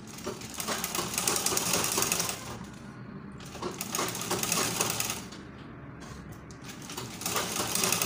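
Sewing machine stitching the fabric in three runs of fast needle strokes: about two seconds, then a shorter run after a pause, then starting again near the end after a longer pause.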